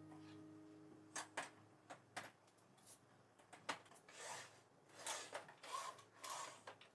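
Faint handling noises: a few light clicks, then soft rubbing and rustling of objects being moved.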